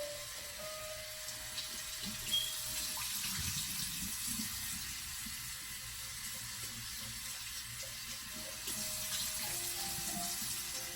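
Water running from a kitchen tap into a sink as part of a drip coffee maker is rinsed out, with a few knocks against the sink, the loudest about two seconds in.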